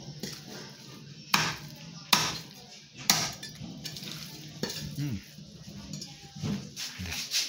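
A large curved chopping blade striking a wooden butcher's block while chicken is cut up: three sharp chops about a second apart, then a few lighter knocks as the pieces are handled.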